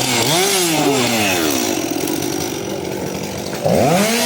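Chainsaw engine revved up and down several times, then revved hard near the end and held at high speed.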